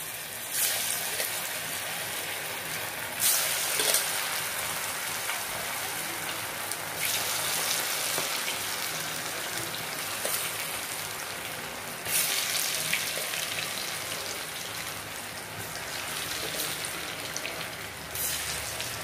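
Battered cauliflower pieces deep-frying in hot oil, a steady sizzle that surges about five times as more pieces are dropped in and then settles back.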